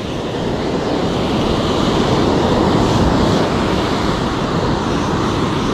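Ocean surf breaking and washing up a sandy beach, a steady rushing noise, with wind on the microphone.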